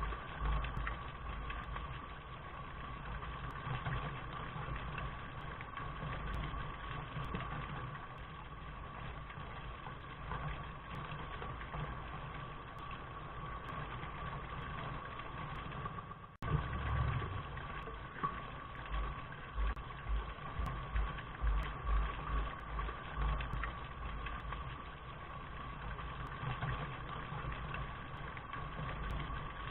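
Steady rain with a low, uneven rumble beneath it. It cuts out for an instant about halfway through and then resumes, as at a splice in a looped recording.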